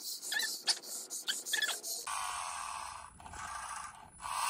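A few light clicks and handling noises, then from about two seconds in a small electric motor in a remote-controlled toy robot runs with a steady whir, cutting out briefly twice.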